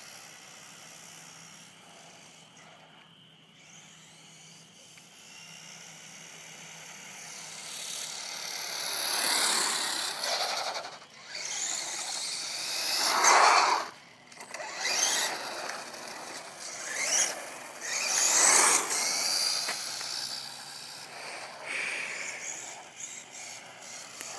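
Redcat Caldera XB 10E electric RC truck's motor whining and its tyres running on asphalt as it drives up and past. It is faint at first and grows louder after several seconds, with rising-and-falling surges of throttle near the middle and again a few seconds later.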